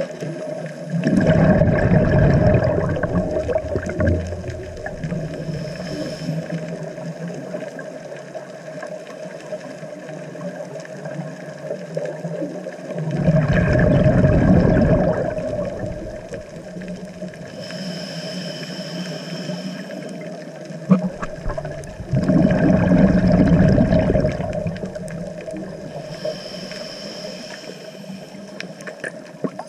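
Scuba diver breathing through a regulator underwater: a hissing inhalation, then a bubbling, rumbling exhalation lasting two to three seconds, repeating in slow cycles about every nine to ten seconds.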